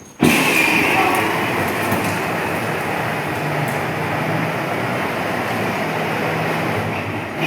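Battery-powered Power Wheels ride-on toy car driving, its electric motors running and hard plastic wheels rolling on the floor in a steady rumbling noise that starts abruptly.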